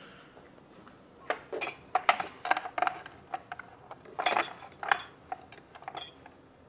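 Barber's tools and small hard items clinking and clattering as they are handled and set down on a workstation counter: a quick, irregular run of sharp knocks, some with a brief ring, starting about a second in, loudest a little past the middle.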